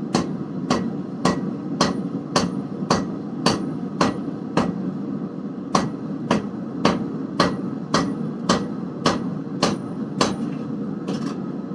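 Hand hammer striking a hot twisted damascus billet (1095 and 15N20 steel) on the anvil, even light blows about two a second with a short pause midway, stopping about ten seconds in. The blows are light on purpose: they forge-weld the seams of the twist together without moving the steel. A steady low noise runs underneath.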